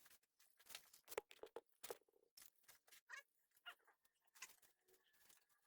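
Faint, irregular clicks and light taps, about a dozen over five seconds, from hands handling parts while fitting a car taillight.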